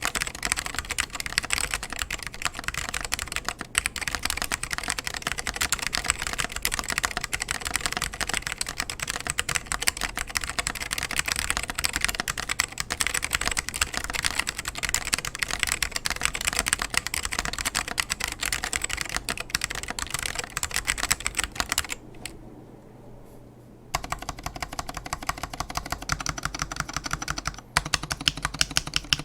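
Continuous fast typing on a custom mechanical keyboard with salmon Alps switches, cleaned and spring-lubed, in a polycarbonate case with Apple keycaps: rapid dense keystroke clicks. Typing pauses for about two seconds a little past the middle, then resumes.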